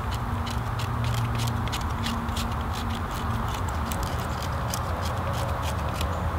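Knife blade scraping birch bark into fine tinder shavings: a quick series of short, crisp scrapes, about three a second, over a steady low rumble.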